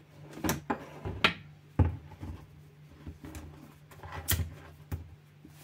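Serrated bread knife sawing into the crisp crust of a homemade wheat loaf: a handful of sharp crunching crackles with a dull knock about two seconds in as the loaf is handled on the counter. The crust is still crunchy.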